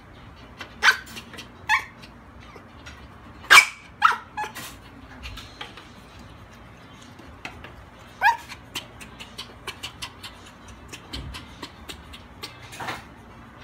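Small dog barking in short, sharp yaps spread over several seconds, about six in all, the loudest about three and a half seconds in. Faint clicks follow near the end.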